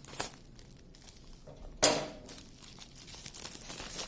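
Plastic kit bag crinkling as it is opened and handled, with one sharp, louder rustle about two seconds in.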